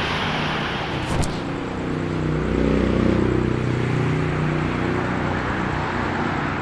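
Typhoon wind and rain rushing steadily on the microphone, with a brief click about a second in and a low droning hum that comes in about two seconds in.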